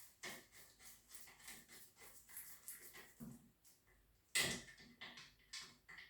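Irregular small clicks and taps of tools and metal parts being handled during motorcycle assembly, some with a light metallic ring, and one louder knock about four seconds in.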